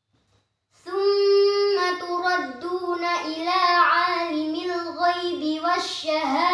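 A girl's voice reciting the Quran in melodic tilawah style. She starts after a short pause of under a second, holds one long steady note, then carries on in a winding, ornamented melody.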